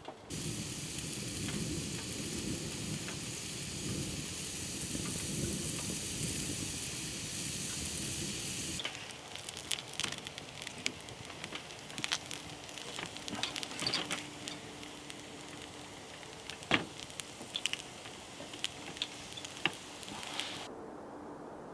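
Slices of black pudding frying in a pan. A steady sizzle runs for about the first nine seconds; then it goes quieter, with scattered sharp clicks and taps. The sizzle cuts off about a second before the end.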